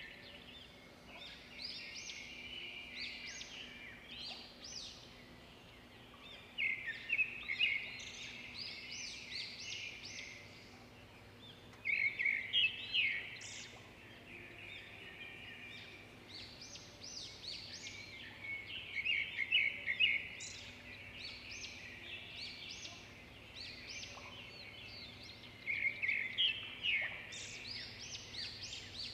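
Small birds chirping and trilling, in bursts of rapid chirps that come every five to seven seconds, with quieter chirping between them.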